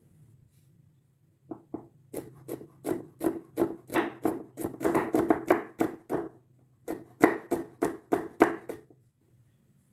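Knife chopping food on a cutting board: a run of quick, even strokes, about three a second, starting about a second and a half in, with a short pause past the middle, and stopping shortly before the end.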